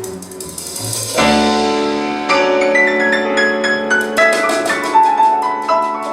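Recorded piano music played back over an Audio Tekne hi-fi system: a loud chord about a second in, then further struck notes and chords that ring and fade.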